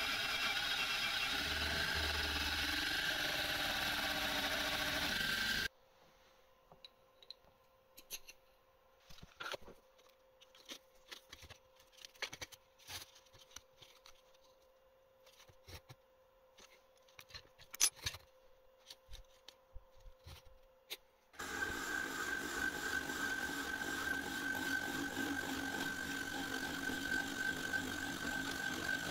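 Milling machine with a face mill cutting a cast aluminium block: a steady machining noise with a high ringing tone, which stops about six seconds in. Then quiet, with light clicks and taps of metal parts being handled, until the mill starts cutting again about 21 seconds in, machining the bore of the cast clamp.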